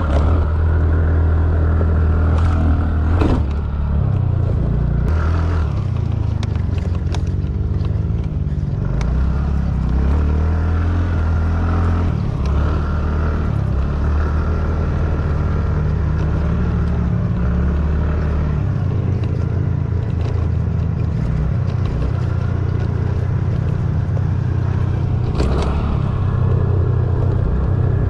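TVS Ntorq scooter's 125 cc single-cylinder engine running under throttle, with the engine note rising and falling as it goes over a bumpy dirt track. The rush and rattle of the ride run under it, and there are two sharp knocks from bumps, about three seconds in and near the end.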